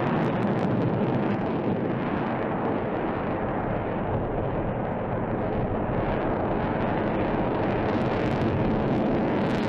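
Jet noise from an F-22 Raptor's two Pratt & Whitney F119 turbofan engines as it maneuvers overhead: a steady, loud rumbling roar with occasional faint crackle.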